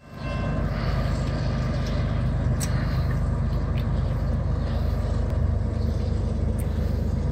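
Steady low drone of the approaching freight train's single diesel locomotive, its engine heard from a distance.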